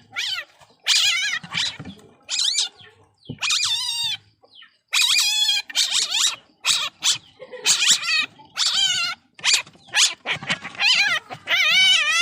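Baby civet calling over and over: about a dozen high-pitched, wavering squeals, each under a second, with short gaps between them.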